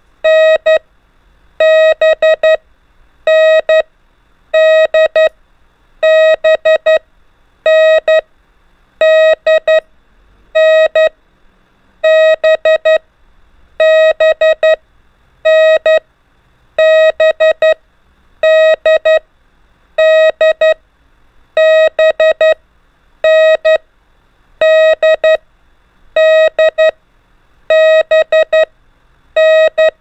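Morse code practice tone, a steady beep near 650 Hz, keying out the letters N, D and B in dots and dashes. There is about one letter every second and a half, with brief gaps between them.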